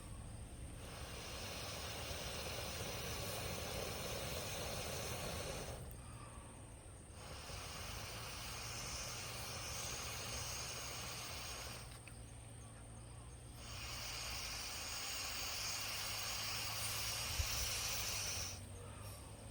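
Someone blowing long, steady breaths onto a bonfire: three hissing blows of about five seconds each, with a short pause between them to breathe in.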